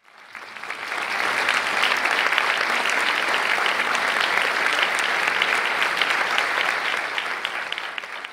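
Audience applauding: many hands clapping together, swelling up over the first second and dying away near the end.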